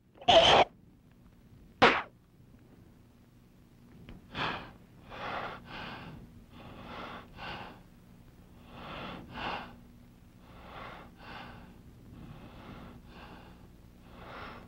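A man breathing hard, winded: a couple of loud sharp gasps at the start, then a steady series of paired in-and-out breaths that slowly grow quieter.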